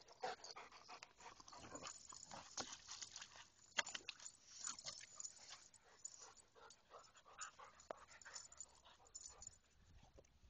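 Dogs panting faintly, with many scattered, irregular small noises.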